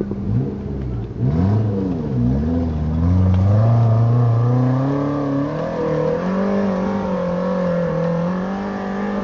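Off-road vehicle's engine revved hard on a climb: it is blipped quickly up and down a few times, then held at high revs under load.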